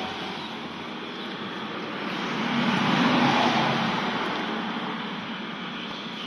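A road vehicle passing by: a steady rush of noise that grows louder to a peak about halfway through, then fades away.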